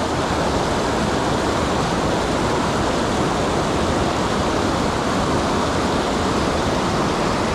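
River rapids: whitewater rushing over rocks, a loud, steady, even roar of water.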